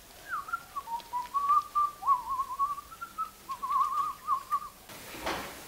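A man whistling a short, wandering tune with quick warbling trills, stopping about five seconds in.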